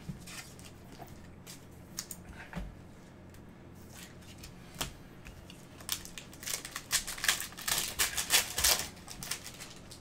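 Football trading cards and their pack wrapper handled by gloved hands: a few scattered light clicks and rustles, then, past the middle, a few seconds of dense crinkling and rustling as a pack is opened and the cards are sorted.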